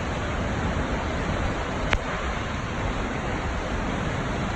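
Steady rush of a waterfall, an even unbroken roar of falling water, with a single sharp click about two seconds in.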